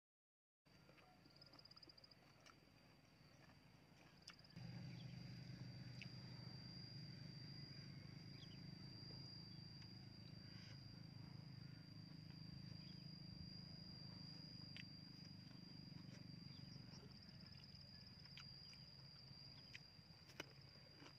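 Quiet field ambience: a singing insect keeps up a steady high-pitched buzz. A low steady hum comes in about four and a half seconds in, and there are faint clicks of eating now and then.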